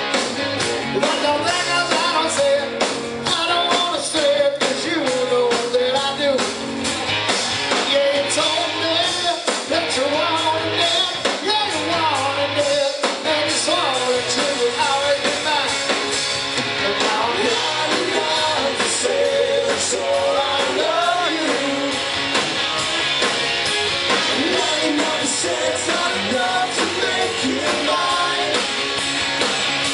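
Live rock band playing: a lead singer over electric guitars and drums, heard from among the crowd.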